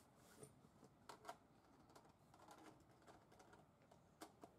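Near silence broken by a few faint, short clicks, two about a second in and two more near the end.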